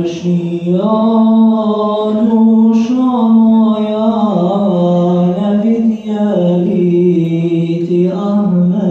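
Unaccompanied voices singing a Bosnian ilahija (Islamic devotional song) in long, slowly bending held notes, with a short breath break about six seconds in.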